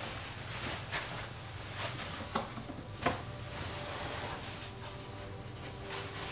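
Soft footsteps and a few light knocks as rubber wellington boots are handled and pulled on, over a low steady hum.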